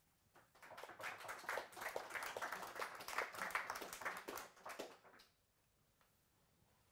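A small audience clapping. The applause starts about half a second in, stays steady, and dies away after about five seconds.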